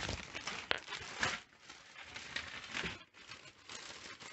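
Plastic packaging crinkling and rustling as a hand rummages through a parcel's plastic mailing bag and cellophane wrapping, in uneven spurts with a few sharp crackles.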